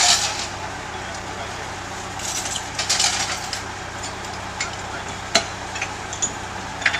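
Sharp metal clanks and knocks from work on a steel trailer and equipment skid: a cluster about two to three seconds in and single clanks later. A steady low engine hum runs underneath.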